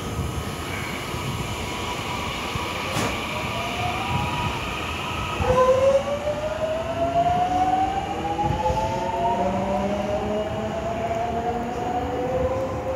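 JR West 207 series electric commuter train pulling out and accelerating away. Its VVVF inverter and traction motors whine in several tones that climb steadily in pitch as it gathers speed, loudest about six seconds in, over the rumble of the train on the track.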